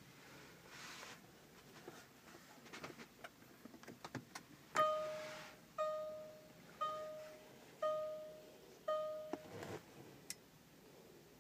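Land Rover Discovery 4 warning chime sounding five times, about once a second, each a short bell-like tone that dies away, as the ignition comes on and the dashboard warning lights are lit. A few soft clicks and handling noises come before it.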